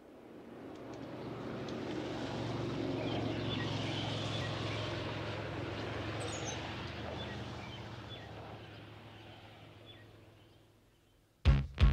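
Background ambience fading in and out: a steady low hum with scattered faint bird chirps. Near the end a loud drum beat starts.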